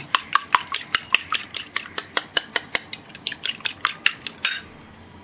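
Metal fork beating a raw egg in a small glass bowl, clinking quickly and evenly against the glass several times a second; the clinking stops shortly before the end.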